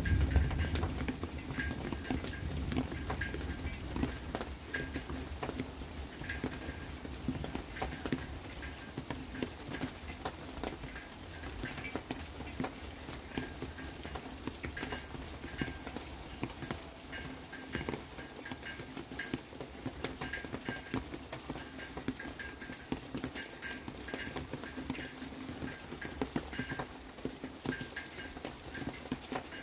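Rain dripping and pattering close by in irregular taps, many drops with a small ringing ping. A low rumble of thunder dies away over the first few seconds.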